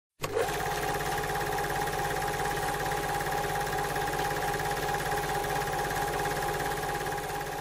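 Film projector running: a steady mechanical whirr with a rapid, even clatter.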